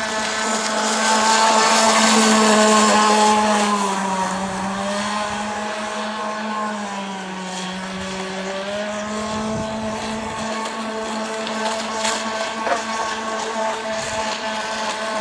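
SC 61 two-stroke glow-fuel (nitro) engine of a 4-foot wooden Huntsman 31 model boat running at high revs as the boat speeds across the water: a steady high-pitched buzz. It is loudest a couple of seconds in, dips slightly in pitch through the middle and picks up again.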